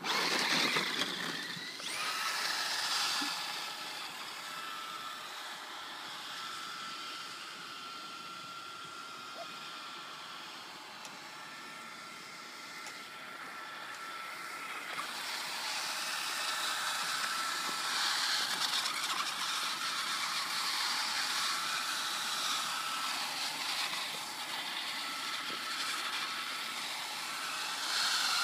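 Traxxas Slash radio-controlled short-course truck running on ice, its motor giving a thin high whine that comes and goes in stretches over a steady hiss.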